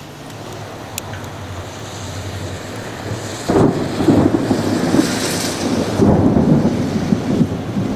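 Thunder from a nearby cloud-to-ground lightning strike: quiet at first, then breaking into a loud, low rumble about three and a half seconds in that goes on to the end.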